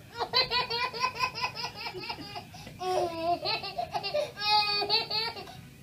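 A baby laughing: a fast run of short giggles for about two and a half seconds, then several longer, drawn-out laughs.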